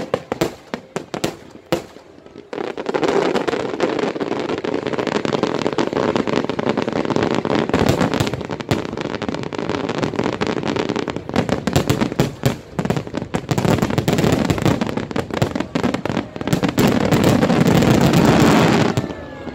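Fireworks display: a few separate bangs, then from about two and a half seconds a dense, continuous barrage of bangs and crackling. It is heaviest near the end and stops suddenly.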